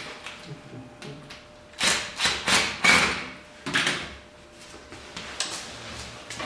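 Hand-handling noises while fitting dust-collection parts: a cluster of four short scraping knocks about two seconds in, then a single sharp click a little later.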